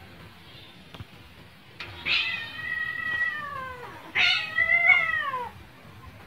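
A cat meowing twice: two long, drawn-out meows, each falling in pitch at the end.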